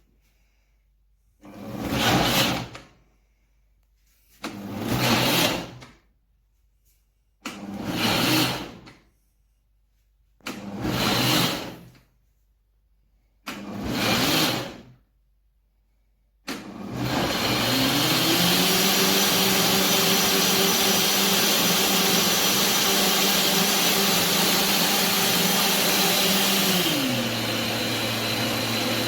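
A 2000 W jug blender pulsed five times in short bursts about three seconds apart, then run continuously with its motor whining up to speed. Near the end it drops to a lower speed.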